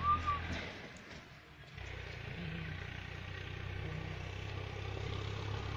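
A motor vehicle's engine running steadily, a low even hum that sets in about two seconds in.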